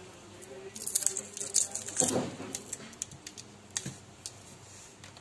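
Irregular plastic clicks and snaps as a metal pick pries the clipped-on button panel off a Portronics Breeze II Bluetooth speaker's casing, with the loudest crackle about two seconds in.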